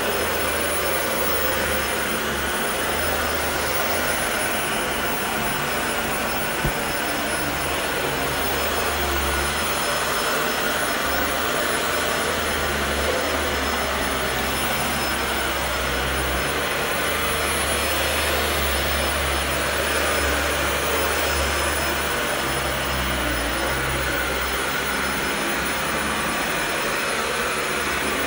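Upright vacuum cleaner running steadily while being pushed over carpet, a constant motor noise with a thin high whine, and one brief knock about six seconds in.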